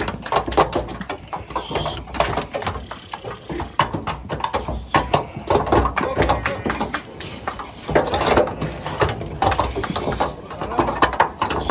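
Many Sakız-cross sheep's hooves clattering on a slatted loading ramp as the flock is driven up it: a dense, irregular run of knocks and scuffs that carries on without a break.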